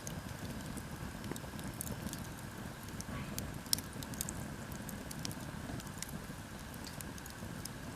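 Wood bonfire burning: a low steady rumble under scattered sharp crackles and pops, one louder pop about four seconds in.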